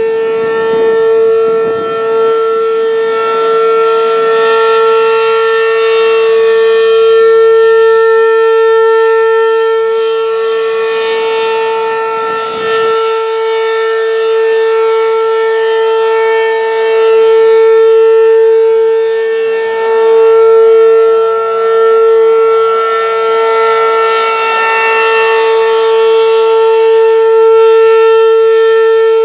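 ACA P-15 outdoor warning siren sounding its alert signal: one loud, steady tone with strong overtones that swells and eases slightly in loudness.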